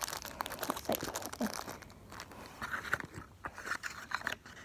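Plastic blister packaging of a die-cast toy car crackling and crinkling as it is handled, an irregular scatter of small clicks and rustles.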